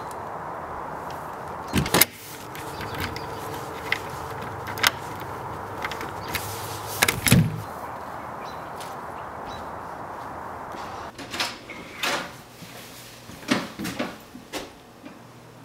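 Double doors of an outdoor storage shed swung shut: a sharp knock about two seconds in and a heavier thud with a rattle around seven seconds in, over a steady background hiss. Later the background drops and a few softer knocks and rustles follow as a jacket is taken off.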